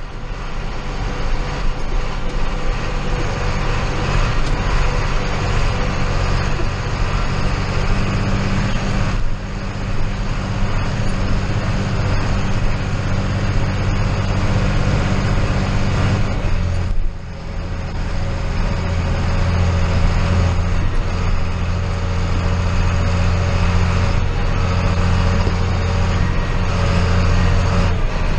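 Diesel engine of John Deere harvest machinery running steadily with a broad mechanical whir. About 17 seconds in the sound dips briefly, and then the low engine note comes back stronger.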